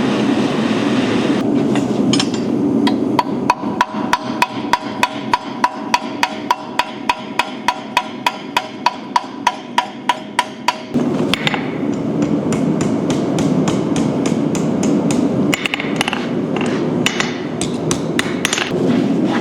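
Hand hammer striking steel on an anvil in a steady run of ringing blows, about three a second, for roughly eight seconds. A few more scattered blows follow near the end, over a steady low rushing noise.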